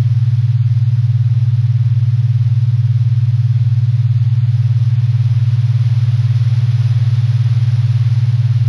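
A loud, steady low hum with a fast, even pulse that never changes, over a faint hiss.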